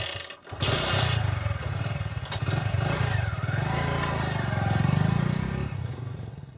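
Motorcycle engine sound effect: a short start, then about half a second in the engine runs steadily, swelling and then dying away near the end as the bike rides off.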